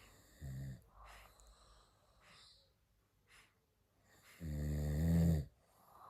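Sleeping dog snoring with faint snuffling breaths, giving a short low snore about half a second in and a louder, longer one of about a second near the end.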